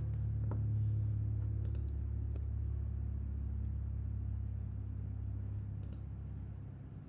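A few computer mouse clicks, two about two seconds in and one near the end, over a steady low hum.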